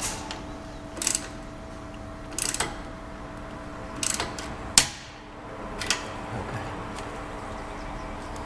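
Socket ratchet clicking in short bursts about once a second as a 10 mm exhaust-clamp bolt is tightened down toward snug, over a faint steady hum.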